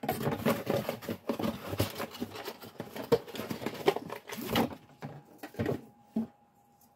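Cardboard and plastic toy packaging being handled: dense rustling and crackling with sharp clicks for about six seconds, then it stops.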